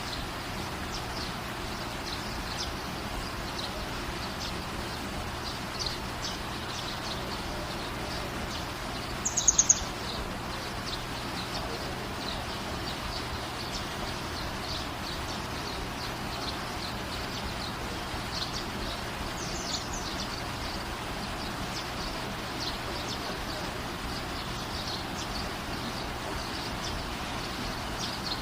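Swiftlets calling: many short, high chirps scattered throughout over a steady hiss, with a louder quick run of chirps about nine and a half seconds in and a fainter one around twenty seconds.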